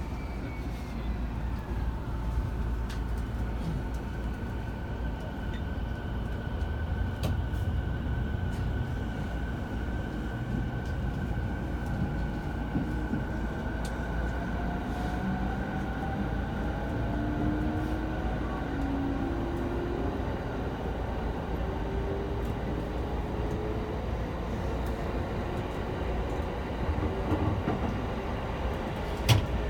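E217-series commuter train running, heard from inside a passenger car: a steady rumble of wheels on rail, with faint whines that rise slowly in pitch through the second half. A single sharp click comes near the end.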